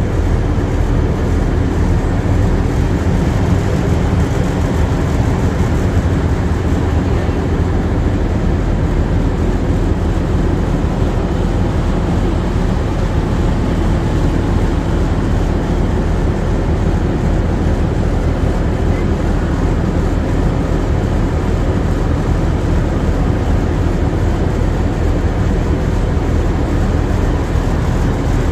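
River motor ship's engine running steadily: a loud, even low drone with no change.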